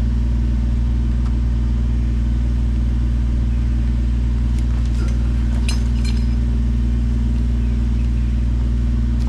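Kubota BX23S compact tractor's three-cylinder diesel engine idling steadily. A few brief light rustles or clicks about five to six seconds in.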